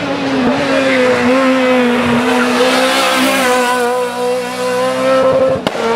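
Renault Clio R3 rally car's engine running hard under full throttle, holding a steady note as the car passes and climbs away. The sound breaks off sharply near the end, and a similar steady engine note follows.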